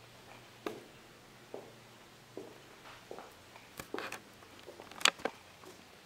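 Footsteps on a tile floor, roughly one step every three-quarters of a second, with a sharper click about five seconds in, over a faint steady hum.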